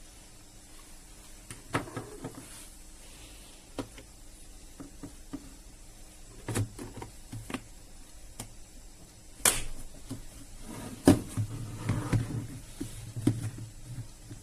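Irregular clicks and knocks, scattered and uneven, the loudest two about nine and a half and eleven seconds in.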